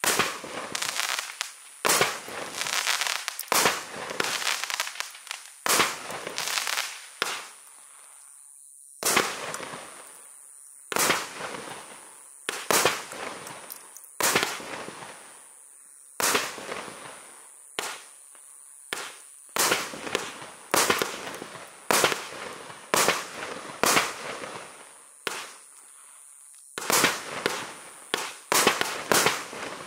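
A multi-shot consumer firework cake firing shot after shot, about one a second with a few quick doubles and short pauses. Each shot is a sharp bang followed by a short fading tail.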